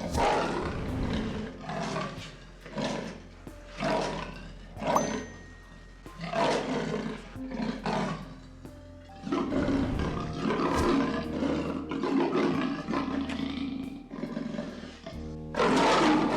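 Lion roaring in a run of repeated calls, over background music.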